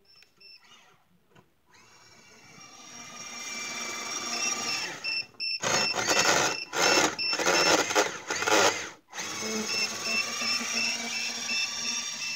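Drill motor in a New Bright RC toy snowmobile whining as it drives over snow, growing louder over the first few seconds. It then comes in loud bursts that cut in and out as the throttle is worked, with one brief stop about three-quarters through.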